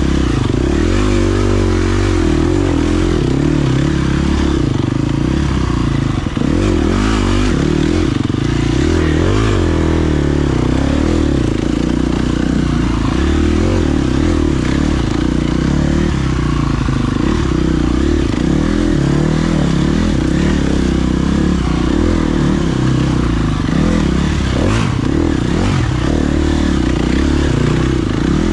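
Enduro dirt bike engine running continuously as it is ridden over a rocky trail, the revs rising and falling with the throttle.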